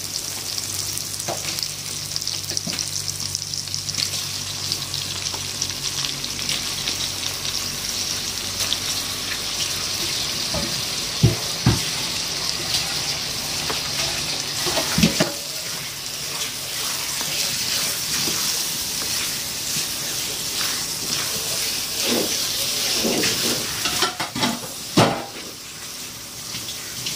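Sambal chili paste sizzling in a frying pan as giant freshwater prawns are added and stirred through. There are a few sharp knocks against the pan over the steady sizzle, the last near the end.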